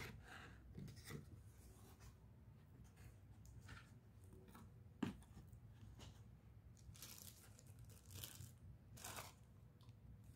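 Faint rustling and scraping of a cardboard box being opened by hand, with one sharp knock about halfway through and crinkling of plastic packaging later on.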